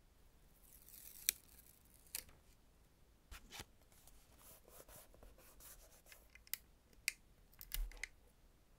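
Close, quiet handling sounds of paper crafting: a soft scraping rub as a butterfly sticker is lifted and pressed onto a notebook page, ending in a sharp click. Scattered crisp plastic clicks and short scrapes follow, with a small thump near the end, as an embossing label maker and its tape are handled.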